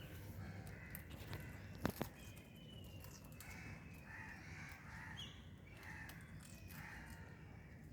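Birds giving short, harsh calls, repeated throughout, with two sharp clicks about two seconds in.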